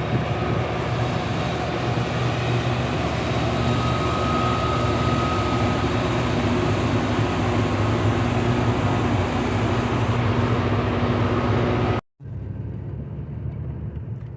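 Steady, loud engine drone with a low hum. It cuts off abruptly about twelve seconds in and gives way to a quieter, duller vehicle rumble.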